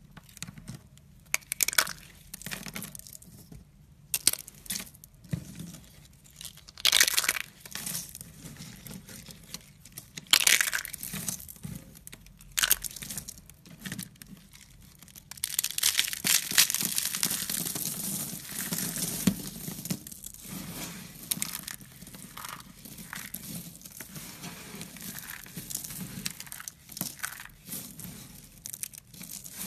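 Brittle dried craft clay being snapped and crushed by hand: separate sharp cracks every second or two at first, then from about halfway a dense, continuous crunching and crackling as the shards are crumbled together.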